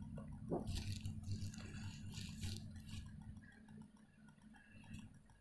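Faint background noise with no speech: a steady low electrical hum, with a few brief soft hisses in the first three seconds.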